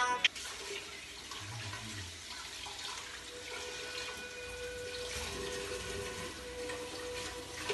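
Kitchen tap running into a sink: a steady rush of water, with a faint steady tone joining about halfway through.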